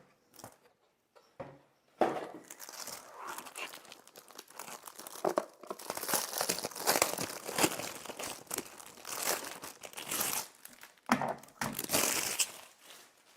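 Packaging crinkling and rustling in surges as a keyboard is unwrapped and lifted out of its box, with many small crackles.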